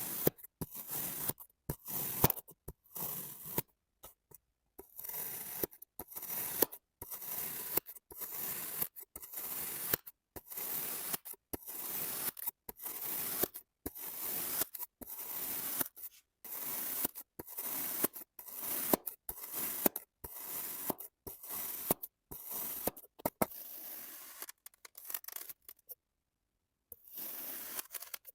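Kinetic sand being cut: repeated short cuts through the packed sand, one or two a second, with a brief pause near the end.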